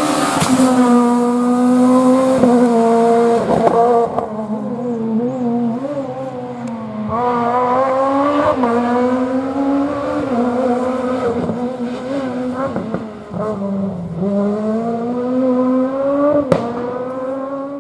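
Renault Clio S1600 rally car's four-cylinder engine revving hard, its pitch climbing and dropping back again and again as it changes gear, with a few sharp cracks along the way. The sound fades out at the very end.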